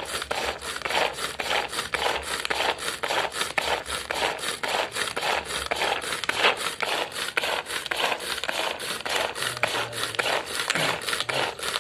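Manual pull-cord vegetable chopper worked over and over, its steel blades spinning through onion pieces in the bowl and chopping them finer: a fast, even run of rasping strokes, about four a second.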